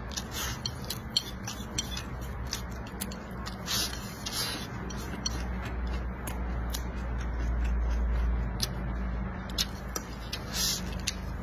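Close-up eating sounds: a mouthful being chewed with wet lip smacks, and chopsticks clicking and scraping against a ceramic plate. There are many short sharp clicks, with a few brief hisses of drawn breath or slurping.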